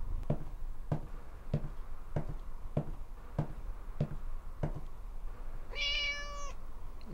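Eight evenly spaced footsteps, about three every two seconds, then a single cat meow held at one pitch for under a second near the end.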